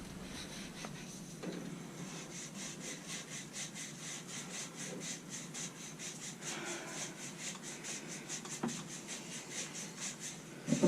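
Copper pipe being rubbed clean with abrasive cloth before soldering: quick, even back-and-forth scraping strokes, about five a second, with a short knock near the end.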